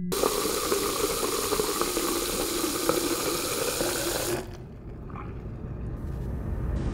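Water running from a tap into a sink as a steady rush, cutting off abruptly about four seconds in. A low swell then starts to build near the end.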